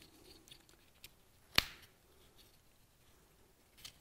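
Small cardboard tube being crushed between the fingers to free a heat-shrink hose clamp: faint rustling handling and one sharp crack about a second and a half in.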